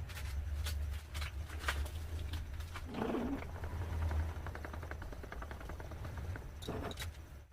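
Lathe running with a steady low motor hum, over which come scattered sharp clicks and, from about three seconds in, a fast rattle of ticks; the hum dies away near the end.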